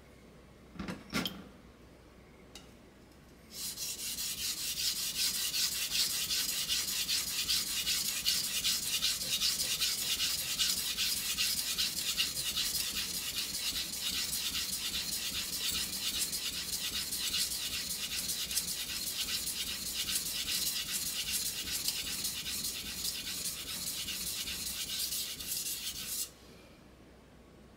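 Steel kitchen knife blade stroked rapidly back and forth on a wet whetstone: a steady gritty scraping that starts a few seconds in and stops abruptly near the end. Two brief knocks come about a second in.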